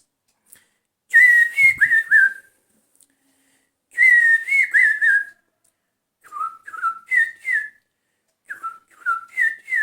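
A man whistling an imitation of a bird's call: four short phrases of three or four notes, each note slurring downward. The first two phrases sit higher, and the last two start lower and step up in pitch.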